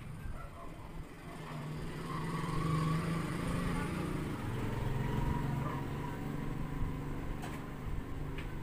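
A motor vehicle engine passing by, growing louder about two seconds in and easing off after about six seconds.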